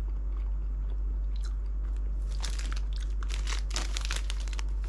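Someone chewing food close to the microphone, with a run of crisp crunching and crackling from a little before the middle to near the end.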